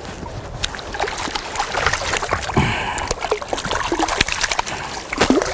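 A hooked fish splashing at the river's surface beside the bank as it is brought to hand: a run of quick, sharp splashes over the sound of flowing water.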